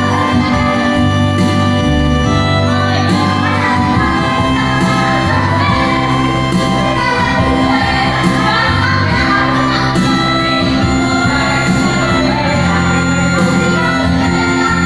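Church worship band rehearsing a song: loud, steady full-band music with singing.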